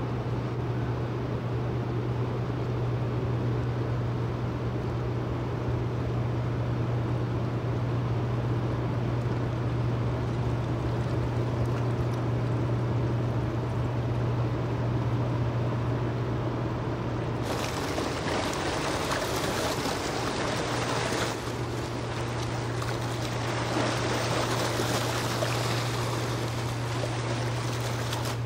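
A passing tanker's engine and machinery giving a steady low hum, with the rushing of water from its hull wash and propeller growing louder about two-thirds of the way through as the stern comes by.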